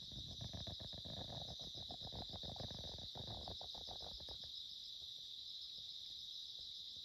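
A steady high-pitched chorus of night insects, shrilling without a break. For the first four and a half seconds or so, a louder low rustling, crackling noise lies under it, then stops.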